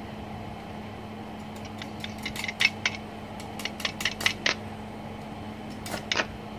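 Stick electrode in a Smarter TIG-180S inverter welder's holder being tapped and scratched on the steel workpiece to strike an arc at 70 amps: a run of sharp, irregular clicks and crackles beginning about two seconds in, over a steady low hum.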